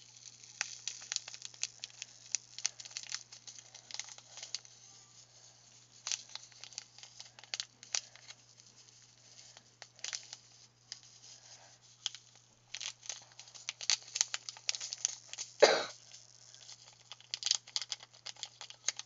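A small plastic bag of yellow coloured sand crinkling in the hand while being emptied into a plastic slime container, giving a dense run of irregular crackles and ticks. About three-quarters of the way through comes one louder scraping thump.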